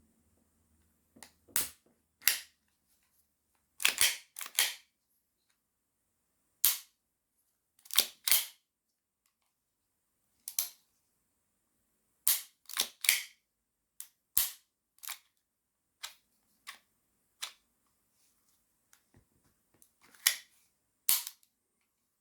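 Sharp metal clicks and clacks as a Hi-capa 5.1 airsoft pistol is put back together by hand. There are about twenty of them at uneven spacing, several in quick pairs.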